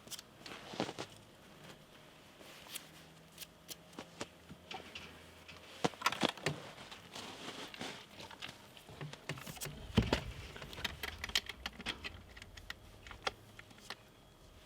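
Scattered small clicks, taps and crinkling from hands working in an opened beehive, with a dull knock about ten seconds in.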